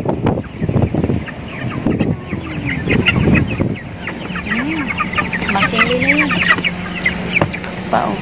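Many short chirping calls, bird-like, fill the middle seconds, with a few lower sliding calls among them. A steady low hum comes in about halfway through.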